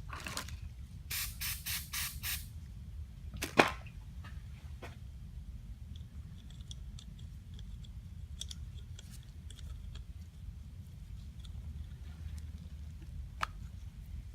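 About five quick bursts of spray hissing in a row while a small carburetor part is cleaned, followed by a single sharp click. Faint ticks of small parts being handled run over a steady low hum.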